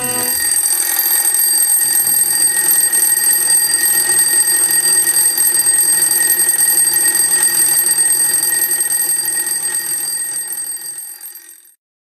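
Newgate Ritz battery alarm clock's alarm ringing steadily and continuously, then fading out and stopping near the end.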